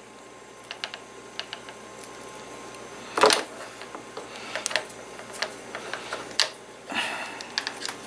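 Light, irregular clicks and taps of hands handling thin wire and a small plastic cord housing on a wooden bench while twisting wire ends together, with a louder knock about three seconds in and another near the end.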